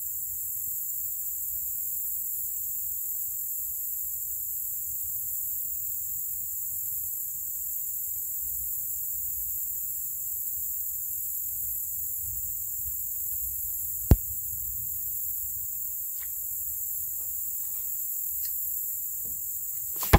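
Steady high-pitched chorus of crickets and other insects, over a low rumble. A single sharp click sounds about fourteen seconds in, with a few faint ticks near the end.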